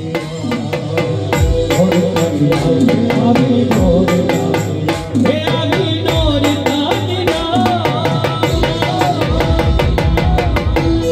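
Live garba dance music over a loudspeaker: an electronic keyboard melody over a fast, steady hand-drum rhythm, with a higher held melody line coming in about halfway through.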